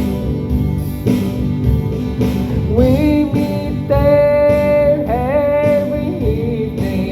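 Instrumental break in a country song: guitar accompaniment over a steady beat, with a lead line that slides up into long held notes about halfway through.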